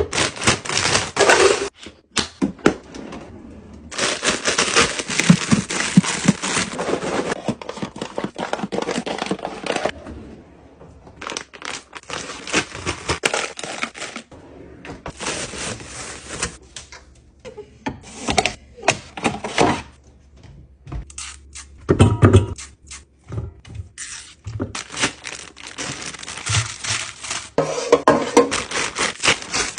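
Kitchen supplies being handled and restocked: packaging rustling and tearing, with containers and lids clicking and knocking, in irregular bursts with short pauses.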